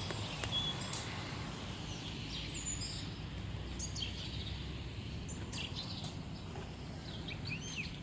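Small birds chirping with short, high calls scattered throughout, a quick run of arched calls near the end, over a steady low rumble of road traffic.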